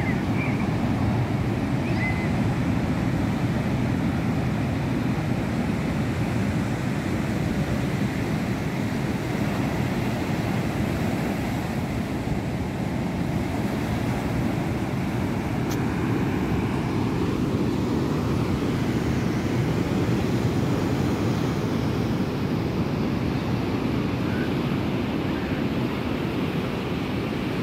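Ocean surf breaking on a sandy beach: a steady wash of waves swelling and easing, with wind on the microphone adding a low rumble.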